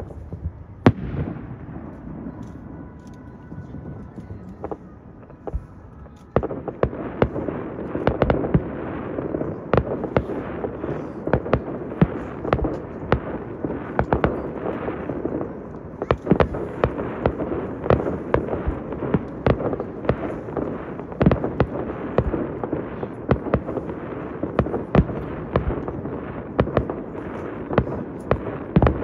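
Fireworks display: one sharp bang about a second in, then from about six seconds in a dense, continuous run of shell bursts and crackling bangs, several a second.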